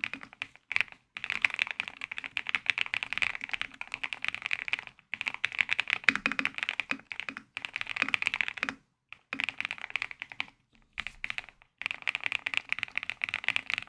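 Typing on a Heracles TKL mechanical keyboard: fast runs of key clicks, broken by short pauses.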